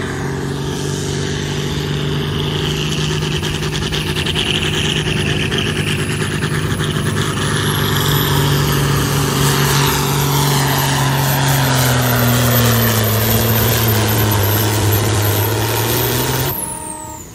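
Semi truck's diesel engine running hard under heavy load as it drags a pulling sled, getting louder as it comes closer. Its pitch sags lower over the last few seconds as the sled's load builds, and the sound cuts off abruptly near the end.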